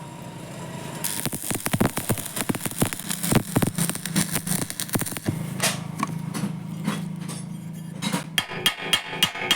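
Electric arc welding crackling and sizzling, with many irregular sharp pops, dying down to scattered clicks after about five seconds. Near the end a percussive music track with a steady beat comes in.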